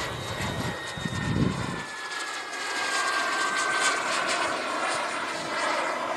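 Radio-controlled model jet's gas turbine engine whining in flight: a steady high whine that slowly drops in pitch, over a rushing hiss. Wind buffets the microphone with a low rumble for the first couple of seconds.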